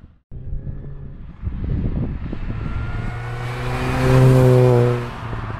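2004 Mini Cooper S (R53) with a stainless-steel exhaust driving past at a steady throttle. Its supercharged four-cylinder engine note builds as the car approaches, is loudest about four seconds in as it goes by, then drops slightly in pitch as it pulls away.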